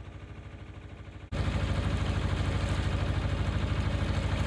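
Narrowboat diesel engine running steadily while cruising, a regular low chug. It turns louder, with more hiss, a little over a second in.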